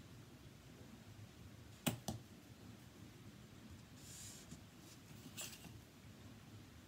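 Quiet tabletop paper crafting. Two quick sharp taps come close together about two seconds in. After them, a few faint, brief scratchy strokes of a Stampin' Blend alcohol marker are drawn along a ruler on paper.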